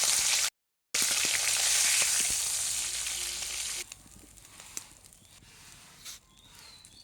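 Hot mustard oil sizzling in a kadai as food fries in it. It breaks off briefly just under a second in, then drops to a faint hiss about four seconds in.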